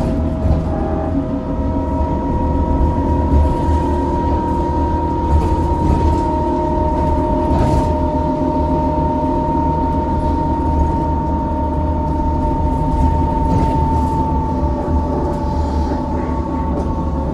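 2004 Neoplan electric trolleybus heard from inside while under way: a steady electric drive whine over road and body rumble. The main whine comes in about a second in and drifts a little lower in pitch near the end.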